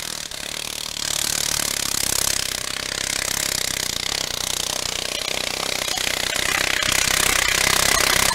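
Modified pulling garden tractor's engine running hard under load as it drags a weight-transfer sled. It steps up in loudness about a second in and keeps building toward the end of the pull.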